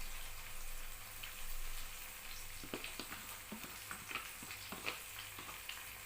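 Blended habanero pepper and garlic sizzling as it is added to onions frying in hot red palm oil, with a steady hiss and a spoon knocking and scraping the pot several times in the second half.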